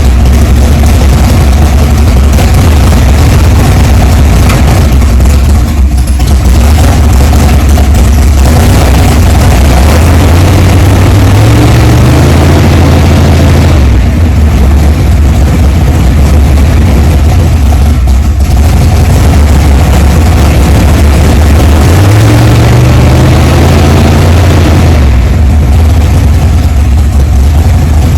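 Carbureted drag-race car engine running loudly with the rear wheels off the ground, revved up twice in low gear and held, then let back down. The run-ups are a test of a newly wired electric shifter, and the transmission does not shift.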